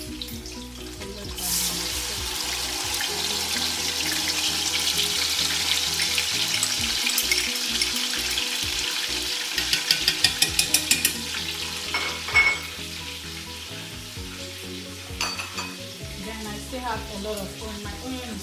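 Chopped onion, spring onion and chili sizzling as they hit hot olive oil in an aluminium pot, the sizzle swelling about a second and a half in and holding steady. A metal spoon stirs them, with a quick run of scraping clicks against the pot near the middle and a single metal clank just after.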